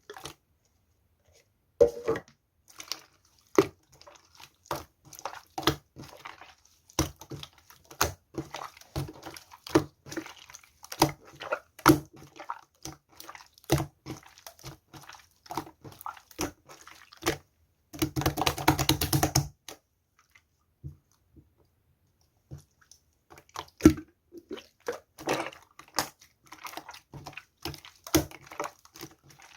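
Slime being squished and pressed by hand, making a string of sticky clicks and small bubble pops. About 18 seconds in comes a dense run of rapid crackling pops lasting over a second, then a short pause before the clicking resumes.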